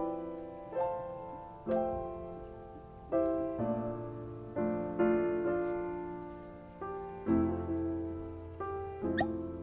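Jazz piano playing slow chords, each struck and left to ring out before the next.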